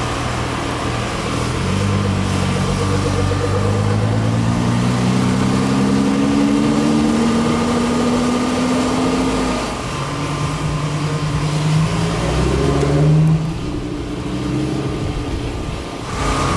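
A supercar's engine accelerating away, its pitch climbing slowly over several seconds. A second, shorter climb follows and drops off suddenly near the end.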